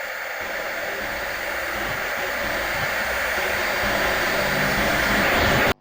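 A rushing noise that swells steadily louder for about six seconds, then cuts off abruptly.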